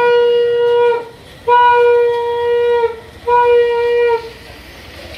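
Conch shell (shankha) blown in three long blasts of steady pitch, the middle one the longest, each sagging slightly in pitch as it ends: the customary conch call of Hindu worship.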